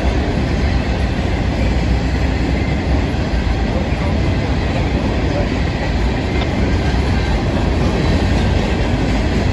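Freight train cars rolling past, a steady, loud noise of steel wheels on the rails with some clickety-clack.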